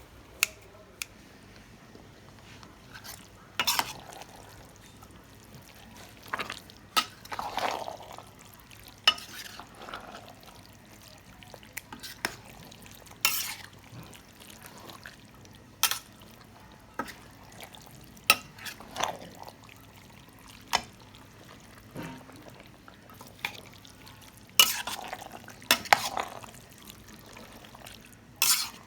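A cooking utensil stirring food in a pot, with irregular clinks and scrapes against the pot every second or few seconds.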